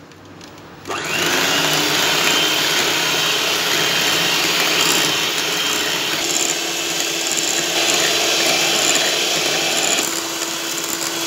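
Electric hand mixer switching on about a second in, its pitch rising briefly as it gets up to speed. Its twin beaters then whir steadily through creamy cake batter in a glass bowl.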